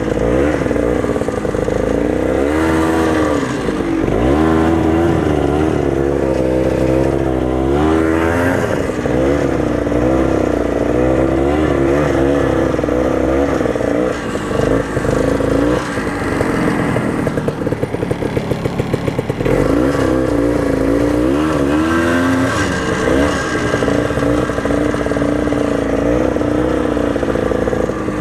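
Ski-Doo snowmobile engine running under way, its pitch rising and falling again and again as the throttle is worked.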